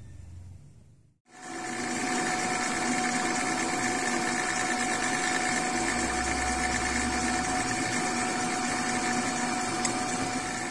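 Drill press running steadily with a constant motor whine, its bit drilling into a steel adaptor flange disc. The sound starts abruptly just over a second in, after a brief quieter stretch.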